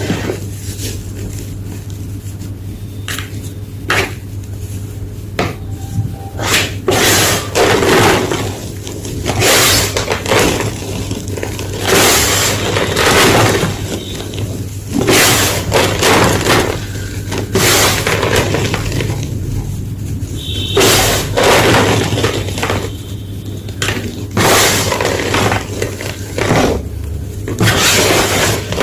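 Blocks of colourful gym chalk being crunched and crushed, a series of irregular crisp crunches and crumbles, some short and some drawn out.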